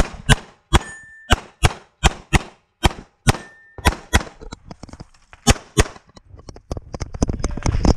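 A hammer-fired semi-automatic pistol fired in a rapid string of shots, about two to three a second, with a short pause a little past the middle before more shots follow. A short steady tone sounds twice in the first half.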